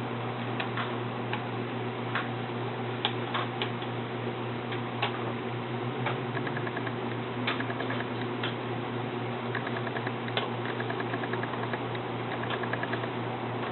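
Scattered light clicks and taps, with a few short runs of rapid ticking, over a steady low hum.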